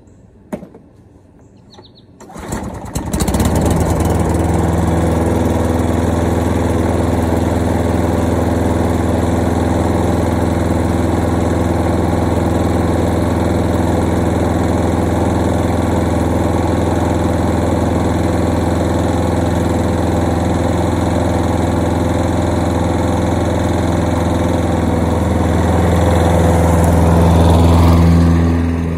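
2005 Toro Super Recycler 20055 walk-behind mower engine pull-started, catching on the first pull about two seconds in after sitting unused since the fall, then running steadily. It grows louder near the end as the running mower comes up close.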